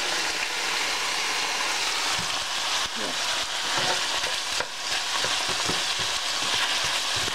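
Beef strips and sliced red onion sizzling in hot oil in a stainless steel frying pan, with a steady hiss. A wooden spatula scrapes and knocks against the pan now and then as it stirs.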